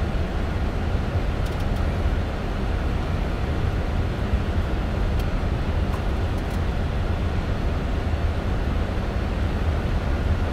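Steady flight-deck noise of a Boeing 747-400 in flight on approach: a constant rush of air and engine sound, heaviest in the low end, with a few faint clicks.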